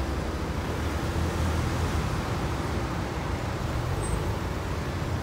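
Steady road traffic noise from a queue of cars in slow, stop-and-go traffic, mostly a low rumble with no single vehicle standing out.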